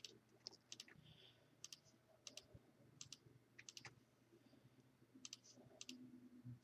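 Faint clicks of a computer mouse, a dozen or so short clicks scattered through, several in quick pairs, over a faint low hum.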